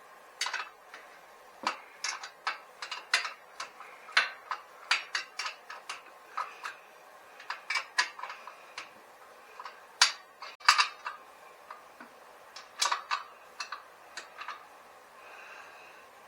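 Light metallic clinks and taps of hand tools on the engine mount bolts and nuts as the engine is fastened to the bicycle frame, coming irregularly one to three a second, with two louder knocks around ten seconds in.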